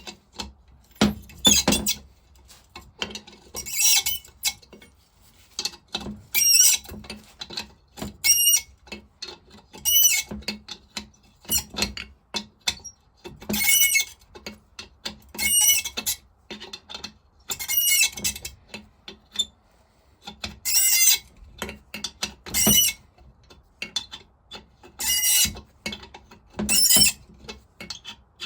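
A rusty, heat-freed nut on a vaporiser squealing on its thread as a spanner works it round. It makes short, high-pitched squeaks about every two seconds, with light metal clicks between.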